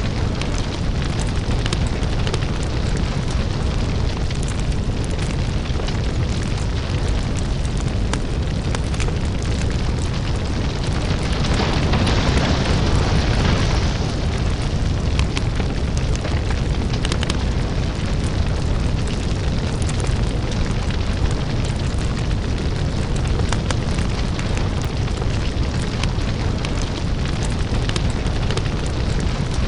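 Lava and fire ambience: a deep, steady rumble under dense crackling and popping. A louder swell rises and fades about twelve seconds in.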